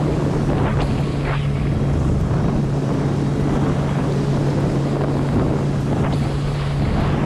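Supercharged Kawasaki Ultra 310 jet ski's four-cylinder engine running at a steady cruising pace, one constant drone, with water splashing against the hull. Wind buffets the microphone throughout.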